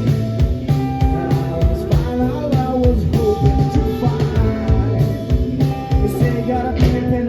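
Live rock band playing the song between sung lines: a steady drum beat with electric guitar and bass.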